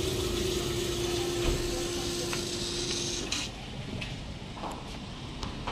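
A steady mechanical hum with hiss that cuts off about three seconds in, leaving quieter background with a few faint clicks.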